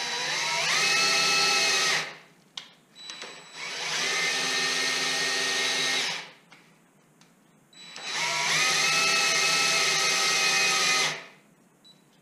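DeWalt cordless drill running in three bursts of about three seconds each, winding the knee crank of an Excello 602 knee mill through a 3D-printed hex adapter. It gives a steady whine, rising in pitch as it spins up in the first burst, with a few small clicks in the pauses.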